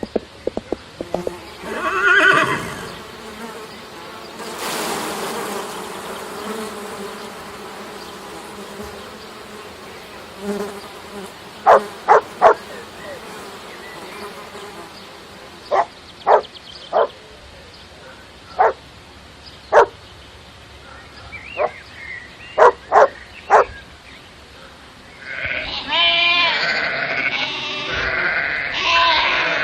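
A series of farm animal sounds. Horse hooves clip-clop in the first second or so, short sharp calls repeat singly and in small groups through the middle, and goat bleating starts about 25 seconds in.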